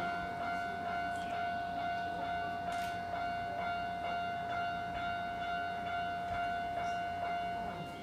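Japanese railway level-crossing warning bell ringing steadily at a little over two strikes a second, the signal that a train is approaching and the barriers are closing.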